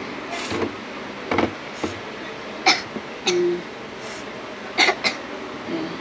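A young child coughing: several short, sharp coughs a second or so apart.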